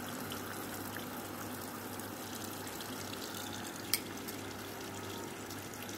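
Steady watery hiss with a low hum from a vacuum filtration setup drawing acetone extract through a Buchner funnel into a side-arm flask, with a single sharp click about four seconds in.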